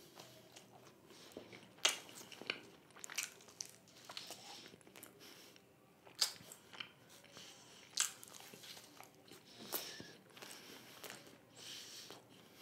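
Close-miked chewing of a soft cheese-burst pizza slice: wet mouth sounds with irregular soft clicks and lip smacks.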